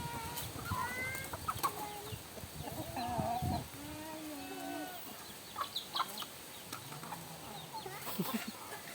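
Free-range village chickens clucking with short calls scattered throughout, and a few brief high chirps from chicks mixed in as they gather to feed.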